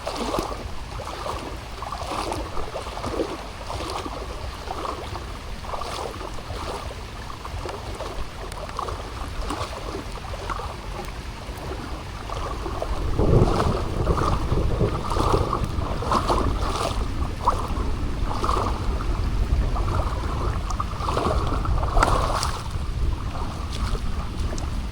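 Rain falling with wind buffeting the microphone, under a scatter of irregular water patters and splashes; the wind rumble grows louder about halfway through.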